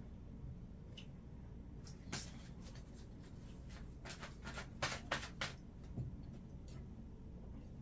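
Tarot cards being handled and shuffled, faintly: a soft rustle about two seconds in, then a quick cluster of rustles and taps about halfway through, over a low room hum.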